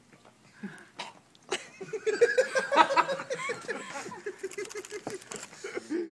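A man laughing hard in quick repeated bursts, starting about a second and a half in and going on to the end.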